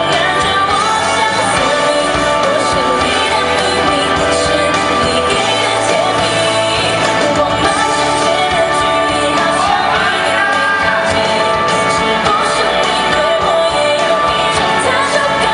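A pop song sung over continuous instrumental accompaniment, the melody gliding up and down.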